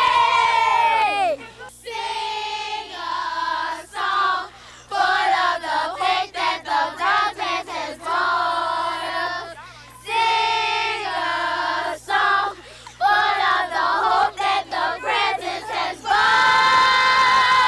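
A group of young girls singing a song together in short chanted phrases. A loud, drawn-out group cry fades out in the first second, and another starts near the end.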